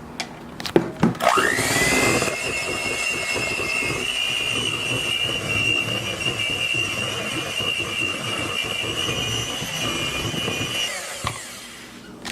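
Electric mixer beating cream cheese frosting: a few clicks, then about a second in the motor spins up with a quickly rising whine, runs at a steady high pitch, and stops near the end.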